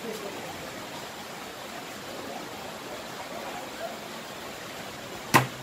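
Steady hiss of rain, then near the end a sharp knock of a knife striking a wooden cutting board as bananas are pressed flat for frying.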